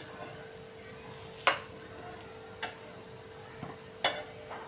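Metal spatula clicking and scraping against a non-stick tawa as it works an egg-and-gram-flour batter sheet, three sharp clicks a little over a second apart, over a faint sizzle and a steady hum.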